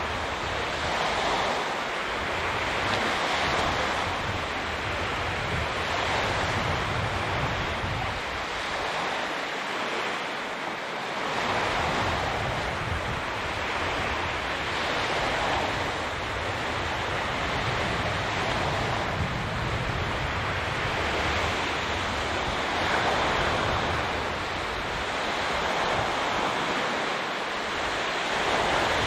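Sea waves washing on the shore, swelling and easing every few seconds, with gusts of wind buffeting the microphone.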